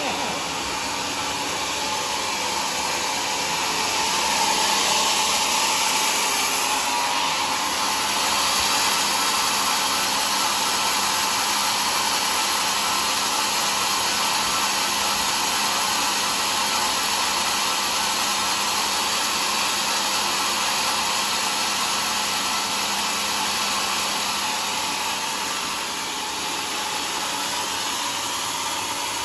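Homemade sawmill running and sawing through a log with a steady noise, louder from about four seconds in.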